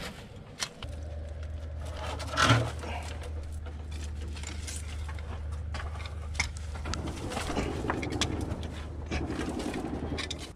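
A few gunshots, sharp single cracks, the loudest about two and a half seconds in, over a steady low rumble and the rustle of a handheld camera being moved.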